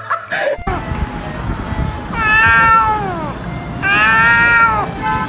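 A domestic cat meowing: two long, drawn-out meows about a second apart, each dropping in pitch at the end.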